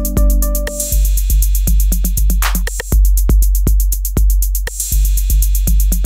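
Background electronic music with a drum-machine beat: fast ticking hi-hats over deep bass, with held synth chords in the first second.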